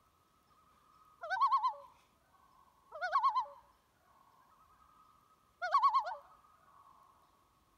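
Three short, wavering bird calls, each a quick trembling warble, spaced a couple of seconds apart over a faint steady tone.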